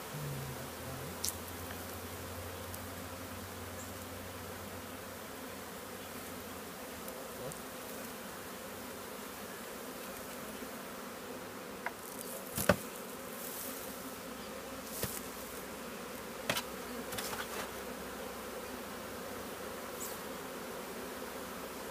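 Honeybee colony buzzing in a steady hum around an opened hive. A few sharp knocks and clicks of the hive boxes and frames being handled, the loudest about halfway through.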